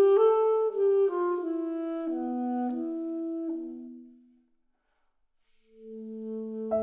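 Alto saxophone and trombone playing a slow phrase that steps downward and dies away about four seconds in. After about a second of silence, two held notes enter, and piano chords come in near the end.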